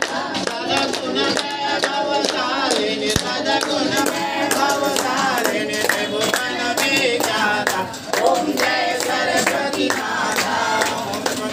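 A group of girls and women singing a Hindu devotional hymn (aarti) together, with hand-clapping in time.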